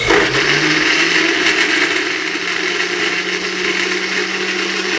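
Countertop electric blender running at full speed, blending cucumber, mint and lemon with water and ice. The motor spins up in the first moment, then gives a steady loud whir.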